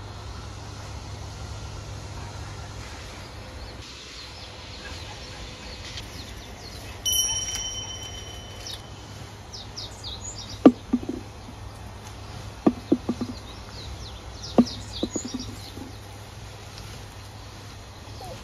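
Loquat branches being handled as fruit is picked off the tree: a series of sharp snaps and rustles from about ten seconds in. Behind them are birds chirping and a long steady whistle about seven seconds in.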